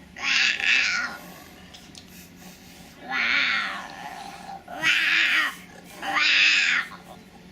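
Four drawn-out cat-like "meow" calls made by a young child's voice. Each call lasts under a second, and there are pauses between them.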